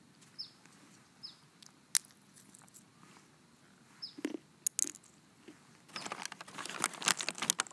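Pistachios being eaten: a few sharp cracks as shells are split open and crunching between them. From about six seconds in, a paper bag crinkles steadily as a hand rummages in it.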